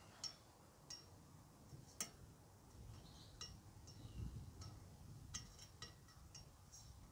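Near silence broken by about a dozen faint, sharp ticks at irregular intervals, the loudest about two seconds in.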